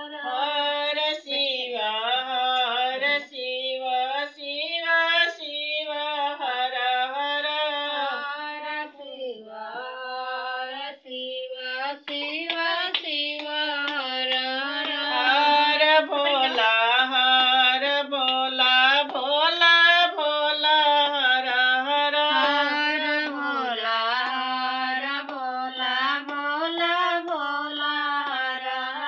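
A woman singing a Hindu devotional song (bhajan) to Shiva, one flowing, ornamented melody line with no instruments.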